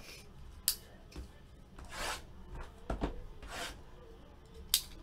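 Cardboard trading-card box being handled and opened, its wrapping rubbing and tearing, with a couple of sharp clicks.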